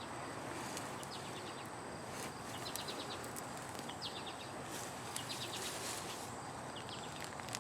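Faint outdoor background noise with short runs of quick, high chirps that come several times.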